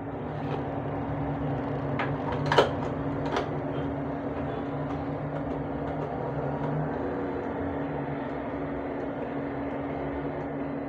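Steady electrical machine hum of a bank ATM and its booth, made of two low tones; the lower tone drops out about seven seconds in. A few sharp clicks come about two to three and a half seconds in, the loudest near two and a half seconds.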